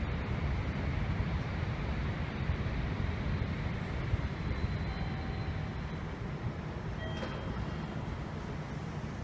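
Electric local commuter train approaching a station platform: a steady low rumble, with a few faint brief tones about seven seconds in.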